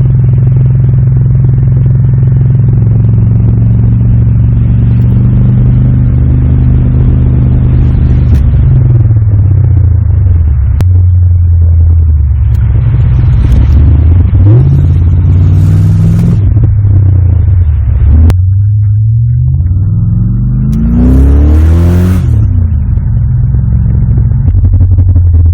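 Holden Calais V8 engine pulling the car along, steady for several seconds, then its revs dropping and climbing again several times, with a sharp rev rise near the end.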